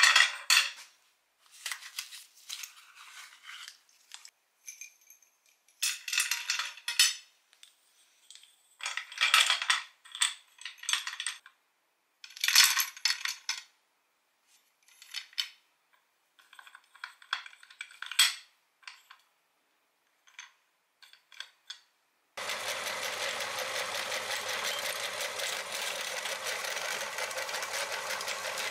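Sticks of chalk clattering in short bursts as they are set down and shuffled on a plastic tray. About 22 seconds in, an electric meat grinder starts up with a sudden, steady motor drone and runs on evenly, grinding the chalk.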